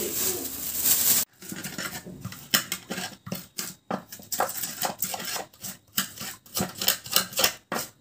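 Pestle crushing shallots and garlic in an earthenware mortar (cobek), a quick run of short knocks and scrapes at about three a second. It opens with about a second of even hiss that cuts off abruptly.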